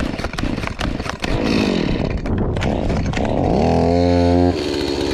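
Gas chainsaw starting up: it runs unevenly at first, then its engine revs up to a high, steady pitch about four seconds in and drops back to a lower, steady idle.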